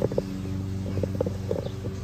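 A few light knocks and rubs from the camera being handled and repositioned, over a steady low hum with a few overtones.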